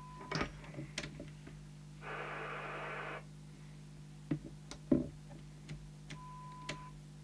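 CB radio receiver on test over a steady low hum: about two seconds in, a second-long burst of hiss as the squelch opens on noise, several sharp clicks of switches and controls, then a steady beep tone from the signal generator breaking through the squelch for under a second near the end.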